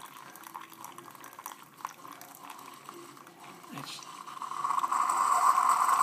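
Keurig single-cup coffee maker finishing its brew: the end-of-brew air purge, a sputtering rush of liquid noise that builds and grows loud from about four seconds in as air forces the last coffee out of the K-cup. It is the sign that the brew is done.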